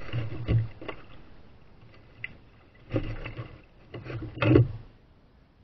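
Plastic kayak hull bumping and scraping as its bow runs up onto the creek bank among sticks and debris: a few separate knocks and scrapes with dull thuds, the loudest about four and a half seconds in, then quiet.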